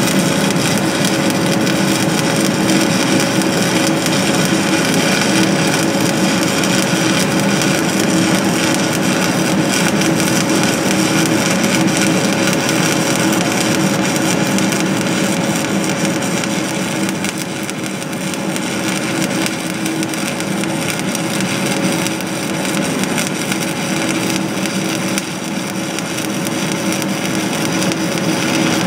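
Stick-welding (SMAW) arc of a 5/32-inch 7018 electrode on DC electrode-positive at about 150 amps, crackling and frying steadily as a bead is run, with a steady underlying hum.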